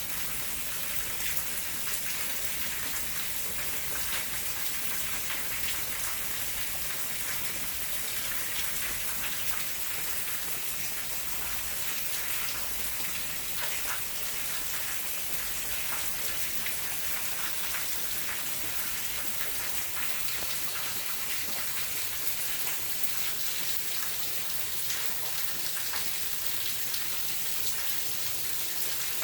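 Steady rain falling, a dense hiss of drops with many small individual drips and patters on surfaces close by.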